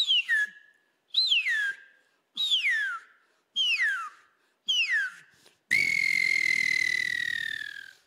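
A man whistling through cupped hands into a microphone, imitating the call of the anu preto (smooth-billed ani): five short whistles, each falling steeply in pitch, about a second apart, then one long whistle held and slowly sinking in pitch.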